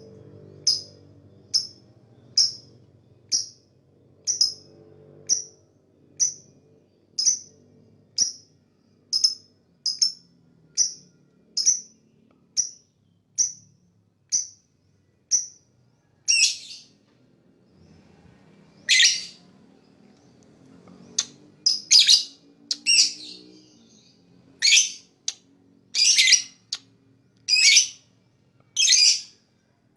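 Lovebird chirping: short, high chirps repeated evenly about once a second. About halfway through they turn into louder, longer, harsher calls.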